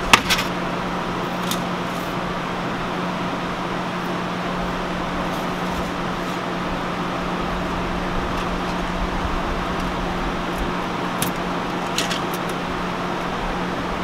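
A plastic zip tie is pulled tight with a quick ratcheting zip over a steady low hum, and a few faint clicks follow later.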